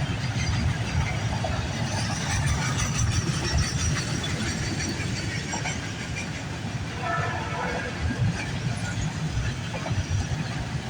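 Freight train rolling past: a steady low rumble of wheels on the rails with scattered clicks, and a few brief higher-pitched tones partway through.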